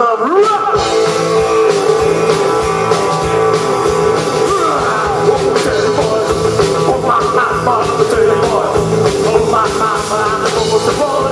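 Live rock and roll band playing loud: electric guitars and drums, with the low end of the rhythm section coming in about a second in, and a male singer over it.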